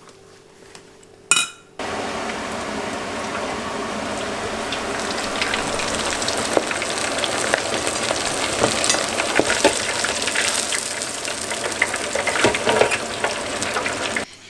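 A short sharp knock about a second in. Then hot oil in an electric deep fryer sizzles and crackles steadily as toothpick-pinned abalone bread rolls deep-fry, stopping abruptly near the end.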